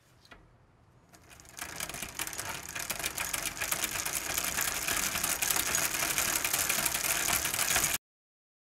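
Logo intro sound effect: a dense, fast mechanical rattle of tiny rapid clicks that builds up over the first two seconds, stays loud, and cuts off suddenly near the end.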